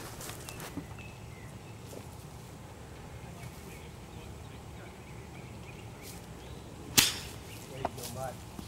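A golf iron striking the ball once with a single sharp crack about seven seconds in, after several seconds of quiet outdoor background.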